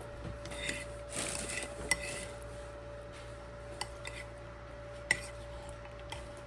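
Utensils scraping and clinking against dishes, with a sharp clink about two seconds in and a louder one about five seconds in.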